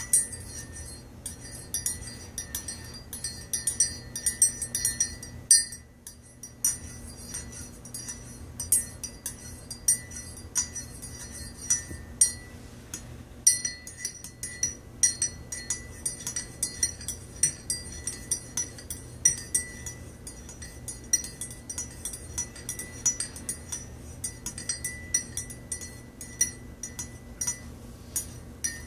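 Metal teaspoon stirring coffee in a ceramic mug, clinking against the mug's sides over and over, each strike leaving a short ringing tone. The clinking stops briefly twice, about six seconds in and again around thirteen seconds.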